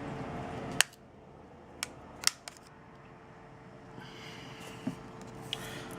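A few short, sharp plastic clicks and taps as the Nexus 5X's back housing is pried loose from the frame. A steady background hum with a faint tone cuts off at the first click, about a second in.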